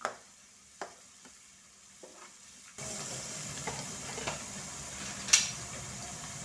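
Metal spatula knocking and scraping against a metal wok as thick chilli sambal is stirred, a few separate knocks. About three seconds in a steady sizzle of the sambal frying takes over, with one sharp clack near the end.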